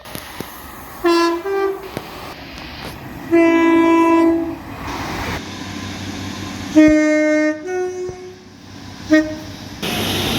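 Train horns sounded by passing trains, several short clips in a row: a two-note toot, a long blast of about a second, another two-note blast, and a brief toot near the end.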